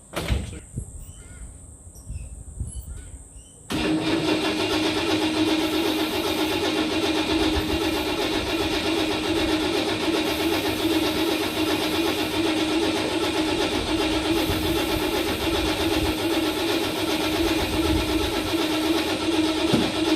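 A knock, then about four seconds in the starter motor begins cranking the Holden 202 straight-six, turning it over steadily for the rest of the time without any rise in pitch from the engine catching.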